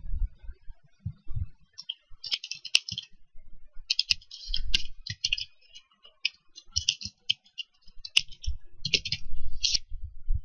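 Typing on a computer keyboard: quick runs of keystrokes in short bursts, with a few low thumps near the start.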